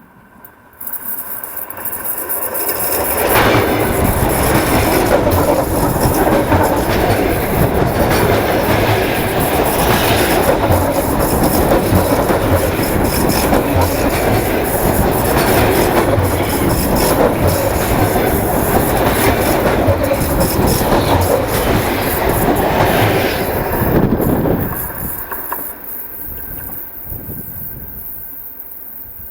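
ЭД4М suburban electric multiple unit passing directly over the camera on the track: its wheels clatter over the rails with squealing. It comes in suddenly about a second in, stays loud for about 23 seconds, then drops and fades as the train moves off.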